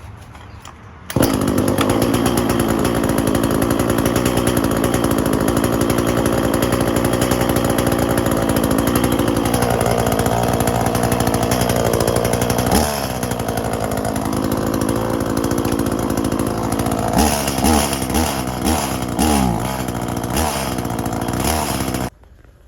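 Small petrol engine running hard at high speed. Its pitch sags a few times in the middle, then it revs up and down quickly several times near the end before cutting off abruptly.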